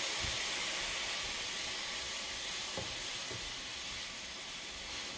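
Diced vegetables frying with white wine in a hot pan, a steady sizzling hiss that slowly dies down, with a couple of faint stirring knocks in the middle.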